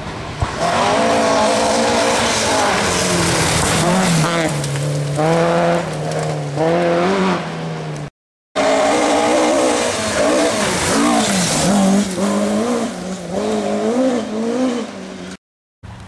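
Rally car engines at full throttle on a gravel forest stage, the revs climbing and dropping again and again through gear changes as each car goes by. The sound breaks off briefly about eight seconds in, where a second car takes over.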